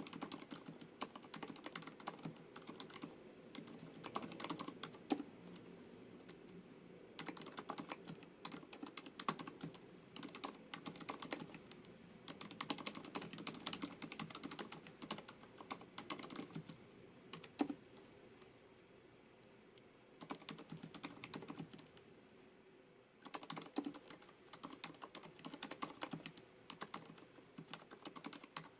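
Typing on a FILCO Majestouch MINILA-R Convertible compact mechanical keyboard with Cherry MX Silent switches: quick runs of keystrokes broken by a few pauses, the longest lasting several seconds about two-thirds of the way in.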